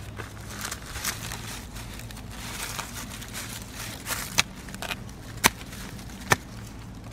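Dry leaves and brush crunching and crackling, with three sharp snaps about four, five and a half and six seconds in.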